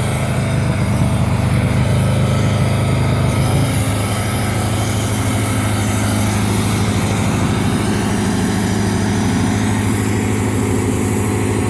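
A sawmill's engine running steadily, its note dropping slightly about four seconds in.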